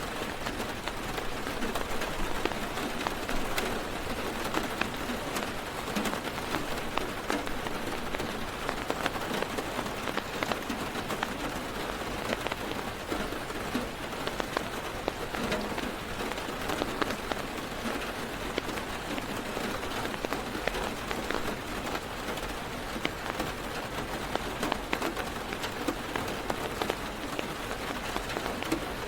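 Heavy rain drumming steadily on a car's roof and windows, heard from inside the car, with a dense patter of individual drops ticking over a constant wash.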